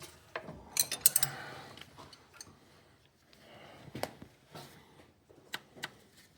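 Hand tools clinking and clicking against metal clutch parts as bolts are worked on: scattered sharp metallic taps, with a quick run of clinks about a second in.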